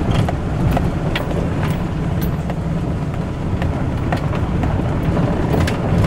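Truck driving on a dirt road, heard from inside the cab: a steady low rumble of engine and tyres with scattered clicks and rattles.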